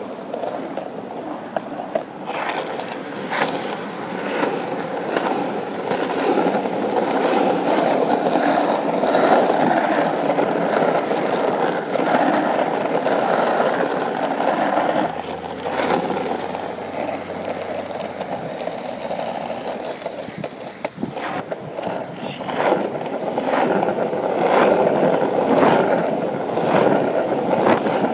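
Skateboard wheels rolling over rough asphalt, a steady gritty rolling noise with scattered sharp clicks along the way.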